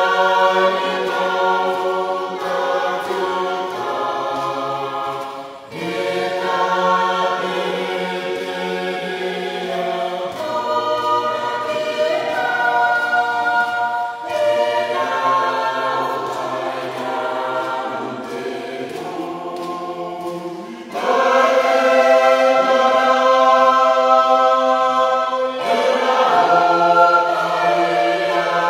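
A mixed youth choir singing a Christian hymn in Gilbertese in long held chords, phrase after phrase, growing louder about two-thirds of the way through.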